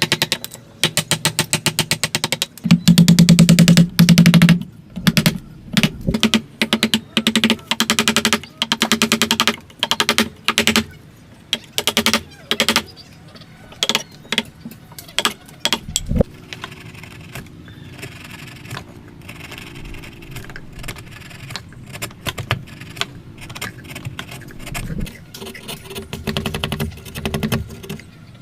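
Hand tool working wood in bursts of quick, rasping strokes, each made of many fast clicks. After about sixteen seconds it turns quieter, with scattered clicks and a faint steady hum.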